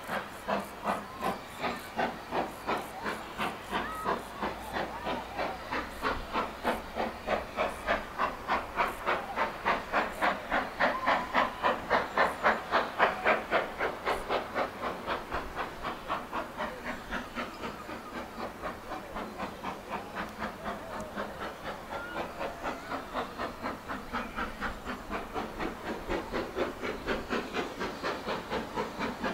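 GWR Manor-class 4-6-0 steam locomotive 7827 Lydham Manor working a train, its exhaust chuffing in a steady quick beat of about two to three a second. It grows loudest around the middle and eases a little towards the end.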